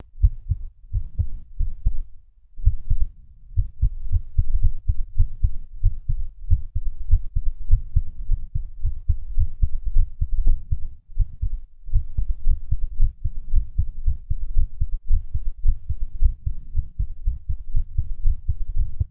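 A man's heartbeat heard close up: a steady run of low thudding beats with an uneven rhythm. A beat drops out about two seconds in, the skipped beat of an irregular heart.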